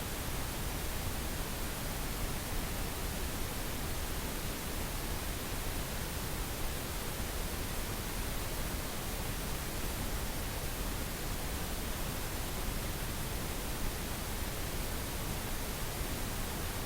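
Steady synthetic pink noise, an even hiss with no change in level.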